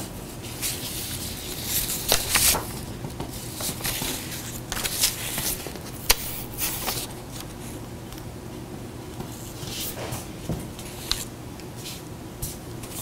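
Pen scratching on paper in bursts as someone writes out figures by hand, with paper rustling and a few sharp ticks, over a low steady hum.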